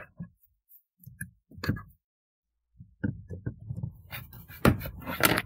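Folding pocket knife blade prying at a plastic clip-in dash speaker grille: scraping and small clicks, busier in the second half, with a couple of sharp clacks near the end as the grille works loose.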